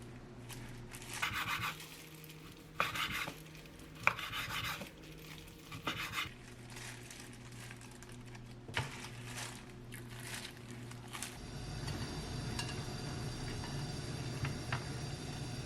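Kitchen utensils and dishes clinking and scraping, with four short strokes and a few sharp clicks in the first half, over a steady low hum. The hum turns fuller and lower about eleven seconds in.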